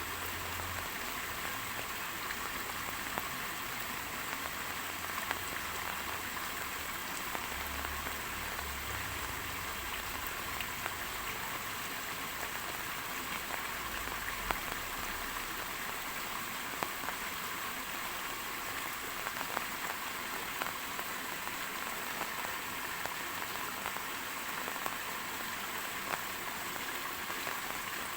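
Steady rain falling on a surface, an even hiss with scattered sharper drop ticks. A faint low rumble sits under it through the first half.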